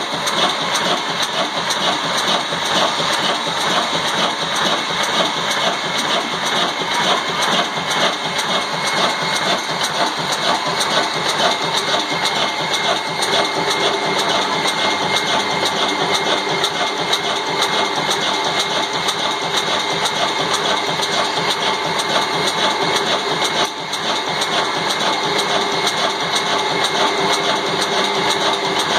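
Old single-cylinder stationary 'black' diesel engine with a heavy flywheel running steadily, with a dense mechanical clatter.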